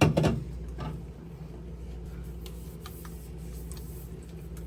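A juice bottle set down on a fridge shelf with a sharp knock right at the start and a lighter one just under a second in, followed by a few faint clicks and taps as items are moved.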